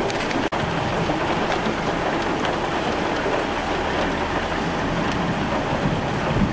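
Heavy rain falling during a thunderstorm: a steady hiss of rain with scattered ticks of drops striking the glass. The sound cuts out for a moment about half a second in.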